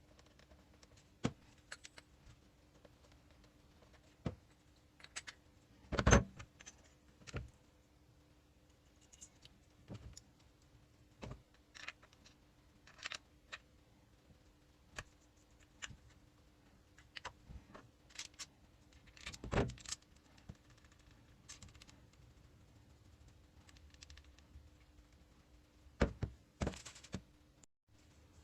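Scattered clicks, clinks and knocks of small hard objects being handled and set down, irregularly spaced, with louder knocks about six seconds in, about twenty seconds in and a few near the end, over a faint steady hum.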